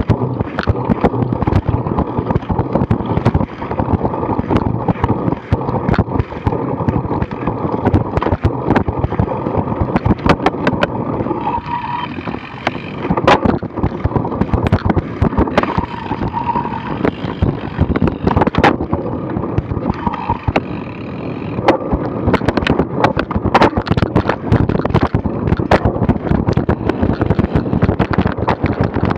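Cyclocross bike ridden over bumpy grass and picked up by an action camera mounted on the bike: a steady rumble with dense rattling and knocks from the bike and mount, over wind noise.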